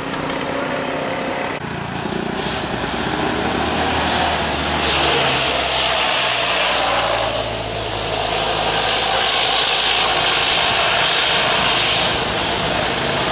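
Heavy road traffic passing close by: large vehicle engines running low, with loud tyre and road noise that swells twice as vehicles go past.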